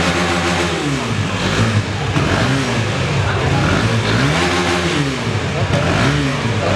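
KTM Duke 250's single-cylinder engine being blipped at a standstill, its exhaust note rising and falling in pitch about four times, one rev roughly every two seconds.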